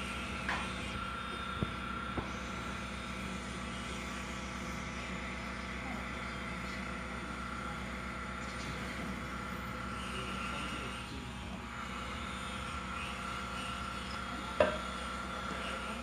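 Steady hum of a stopped electric train's onboard equipment, with a steady high whine that drops out for about a second near eleven seconds in. A few light clicks come in the first couple of seconds, and one sharp knock, the loudest sound, comes near the end.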